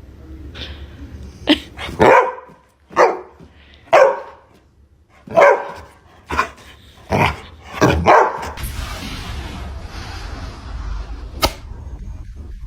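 A dog barking, a string of about eight separate barks at uneven spacing, after which the barking stops and a steady hiss remains with a single sharp click near the end.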